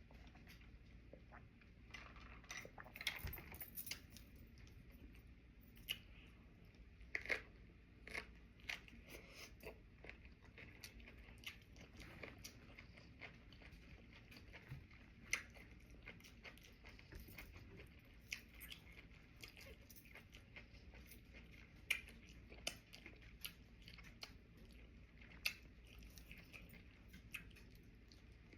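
A person chewing and biting into sushi: irregular crisp crunches and wet mouth clicks, with a few louder crunches among them.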